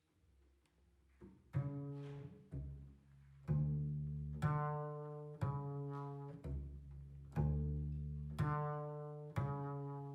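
Solo double bass plucked pizzicato, playing slow single notes about one a second, each ringing out and fading before the next. It starts faintly and the first full note comes about a second and a half in.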